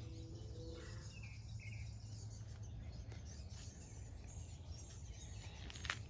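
Faint outdoor ambience: small birds chirping now and then over a steady low rumble, with a brief scratchy noise near the end.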